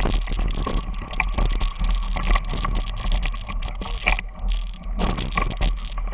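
Mountain bike riding through a shallow river ford, water splashing and churning around the wheels in a dense, irregular wash.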